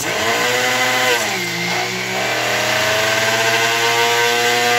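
Personal bullet-style blender motor running at full speed, grinding a dry mix of stump remover and sugar into a fine powder. Its pitch drops briefly about a second in as the load bogs it, then climbs slowly and steadily.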